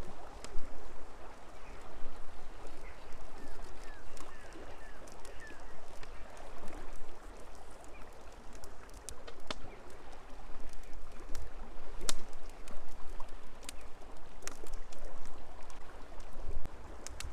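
River water flowing steadily, with a few short rising bird chirps a few seconds in and several sharp clicks later on.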